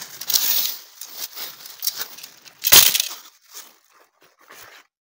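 Nylon tent fabric rustling and crinkling as it is rolled and stuffed into its carry bag, with dry leaf litter crackling underfoot and one sharp crunch nearly three seconds in. The noise dies away near the end.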